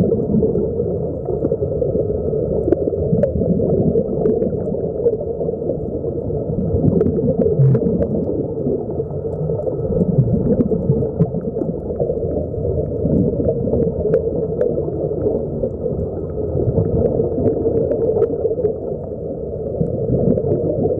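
Muffled underwater rumble and gurgling of air bubbles from sea-walk diving helmets, heard by a submerged camera, with a few faint clicks.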